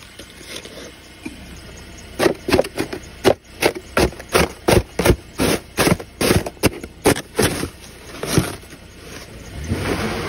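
A plastic snow brush's scraper blade hacking and scraping at packed snow and ice around a car's front tire. There is a quick run of sharp strokes, about three a second, starting about two seconds in and lasting several seconds, then a couple more.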